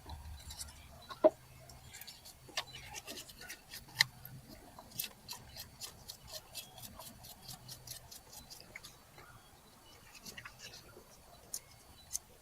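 Light handling noises: scattered small clicks and rubbing, with a sharper click about a second in and another about four seconds in.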